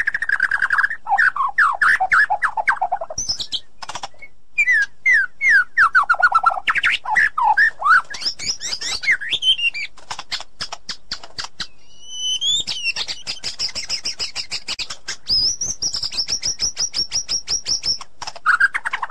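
White-rumped shama singing a long varied song: clear falling whistled notes and fast dry rattles, then a long, high, rapid trill through the second half.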